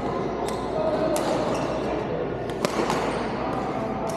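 Badminton rackets striking a shuttlecock in a rally: several sharp cracks about a second apart, the loudest a little past halfway. Under them runs a steady murmur of voices from around the hall.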